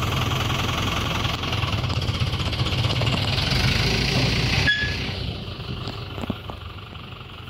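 Farm tractor's diesel engine running at high revs with a loud hiss over it, then dropping suddenly to a quieter, lower run about five seconds in, with a brief squeal at the change. The tractor is working a tipping dump trailer, which goes from raised to lowered.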